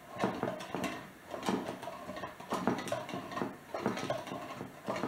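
A 1915 hand-cranked glass-jar butter churn being turned, its crank and lid gearing driving the paddle back and forth through the cream. It makes a steady rattling clatter, with a sharper clack about once a second.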